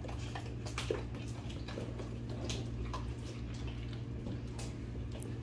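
Dogs licking and lapping at a can of spray cheese, with scattered clicks of claws on the hard floor, over a steady low hum.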